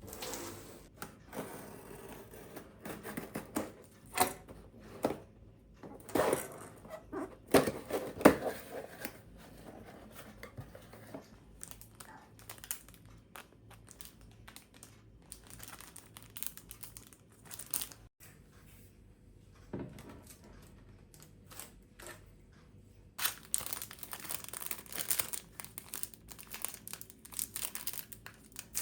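Crinkling and rustling as something is handled by hand, with scattered small clicks and knocks; a denser, steadier stretch of rustling starts about three quarters of the way through.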